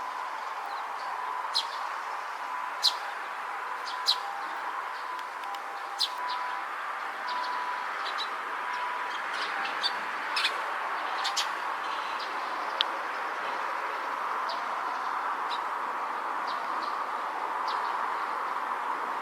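Eurasian tree sparrow, young-sounding, giving short, sharp chirps at irregular intervals, about a dozen, most in the first two-thirds, over a steady background hum.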